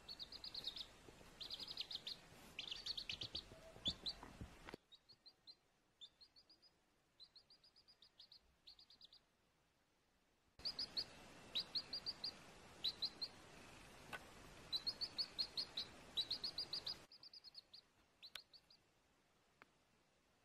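Baby chick peeping: quick runs of short, high, falling peeps, over a faint hiss that drops away twice and returns.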